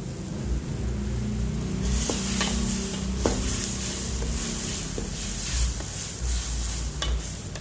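Bihon noodles and sauce sizzling in a wok as the sauce is cooked down, stirred with a metal ladle that knocks against the pan a few times. The sizzle grows louder about two seconds in, over a steady low rumble.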